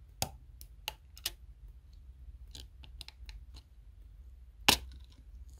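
Plastic spudger clicking and tapping against an iPhone 13's logic board as it prises off the battery flex connector: a few sharp clicks, a run of lighter ticks, and one much louder click about three-quarters of the way through.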